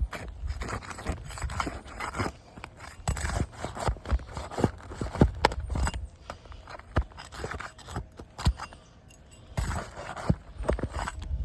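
Irregular tapping and scraping on asphalt roof shingles as they are worked by hand and tool, with a brief lull about eight seconds in.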